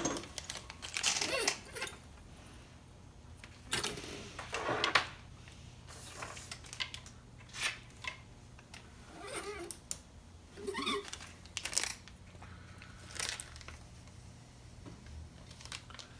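Hand work with small chainsaw engine parts and tools on a bench: irregular light clicks, scrapes and rustles, including a couple of short squeaks a little past the middle, over a steady low hum.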